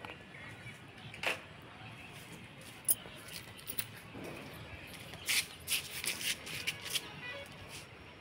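Scattered clicks, knocks and rustles of handling: the phone camera being taken in hand and a .177 air rifle being handled, with a cluster of sharper clicks about five to seven seconds in.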